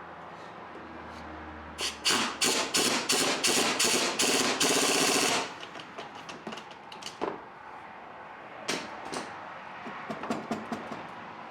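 A quick run of sharp metallic impacts, about four or five a second, ending in a continuous rattle of about a second, then scattered single knocks and clinks. It is tool work on metal.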